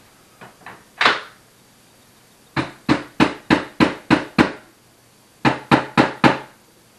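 Mallet strikes tapping a part into a stroller's frame: a knock about a second in, then a run of seven quick strikes at about four a second, and after a short pause four more.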